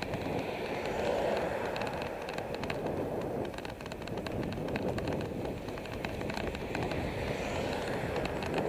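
Riding a bicycle on asphalt: steady rush of wind on the microphone and tyre noise, with frequent small clicks and rattles throughout.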